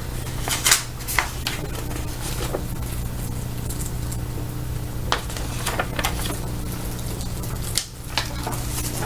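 Handling noises from unpacking a subscription box: a scattering of short, sharp rustles and taps over a steady low hum.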